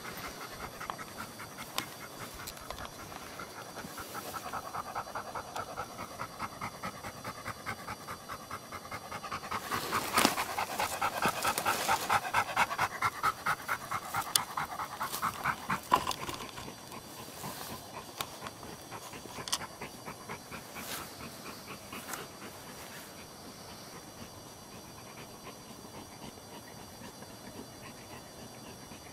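Dog panting fast and rhythmically. It grows louder about ten seconds in, then fades to faint panting, with a few sharp knocks along the way.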